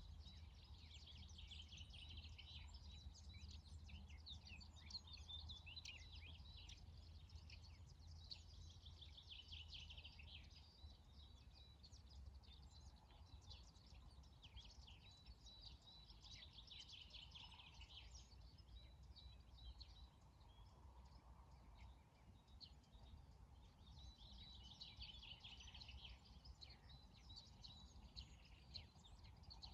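Faint morning chorus of small birds, many short chirps and trills overlapping, over a steady low rumble of outdoor ambience.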